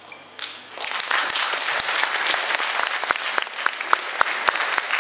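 Audience applauding, breaking out about a second in after a quiet moment and continuing steadily, with single sharp claps standing out.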